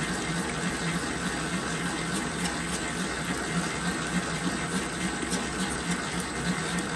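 Famag IM8S spiral dough mixer running at speed setting 7, its spiral hook churning a large batch of pizza dough in the bowl. The steady motor whir carries a rhythmic low pulse. This is the short final remix that pulls the rested dough back together.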